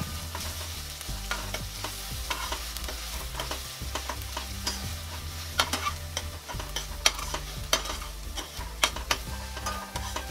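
Chopped onions with chilli-ginger-garlic paste sizzling in hot oil in a stainless steel pan, stirred with a steel spoon that scrapes and clicks against the pan at irregular intervals.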